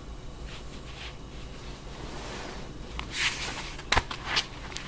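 Paper instruction booklet being handled and its pages turned: a soft rustle about three seconds in, then a few sharp paper flicks.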